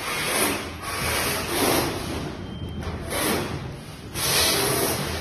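Rubbing and scraping handling noise in about four bursts as hands and pliers work the wire terminals on a control board.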